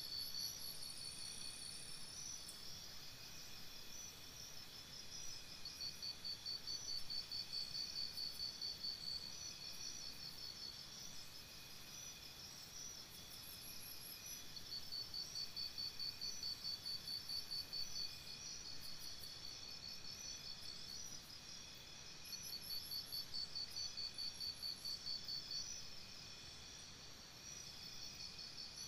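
Crickets chirping, several rapid pulsed trills overlapping and swelling every few seconds, with short higher chirps now and then.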